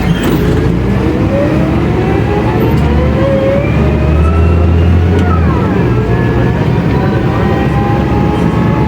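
Mercedes-Benz O500U city bus engine pulling hard under acceleration through its ZF automatic gearbox, the engine pitch climbing steadily. About five seconds in the gearbox shifts up and the pitch drops, then it climbs again.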